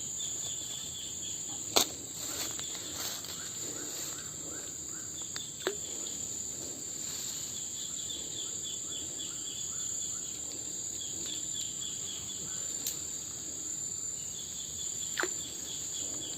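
Evening insect chorus: a steady high-pitched drone with repeated trains of short chirps. It is broken by a few sharp clicks or knocks, the loudest about two seconds in.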